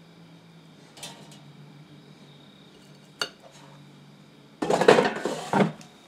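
Metal tongs clicking twice, then the loudest sound near the end: the plastic basket of a Cook's Essentials air fryer clattering as it is slid back into the unit.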